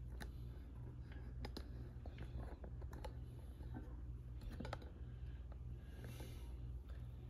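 Scattered light clicks and taps of handling noise over a low, steady hum.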